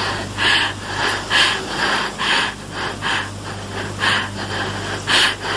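Heavy, rapid breathing, about two ragged breaths a second, over a steady low hum.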